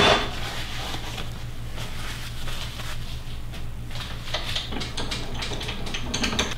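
A knock right at the start, then light clicks and rubbing as a turned maple burl sphere is handled and taken from between the lathe's cup centers, over a steady low hum.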